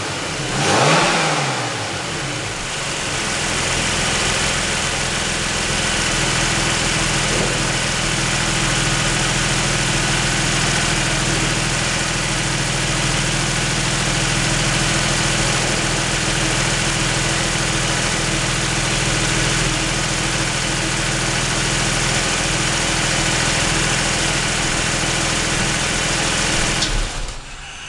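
Freshly rebuilt Toyota Supra 7M-GE 3.0-litre straight-six, blipped once by hand at the throttle about a second in, its revs rising and falling, then idling steadily. The engine cuts off suddenly about a second before the end.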